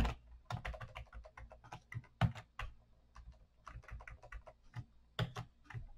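Computer keyboard typing: keys clicking in short, irregular runs.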